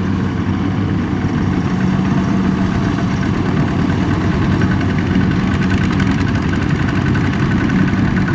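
Kubota RT120 walk-behind power tiller's single-cylinder diesel engine running steadily with an even, low hum as it pulls a loaded trailer at walking pace.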